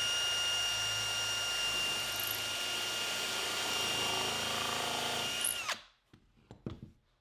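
Cordless drill running steadily with a countersink bit, boring a pilot hole and countersink into a softwood board. The motor whine cuts off sharply about six seconds in, followed by a few light knocks.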